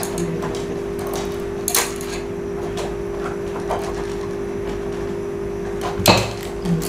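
Light clicks and knocks of fishing rods being handled, with the sharpest knock about six seconds in, over a steady hum.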